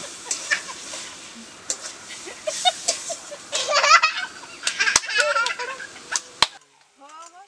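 A small child babbling and squealing in short, high-pitched bursts, with a few sharp knocks, likely from metal bowls or utensils. The sound drops off suddenly near the end.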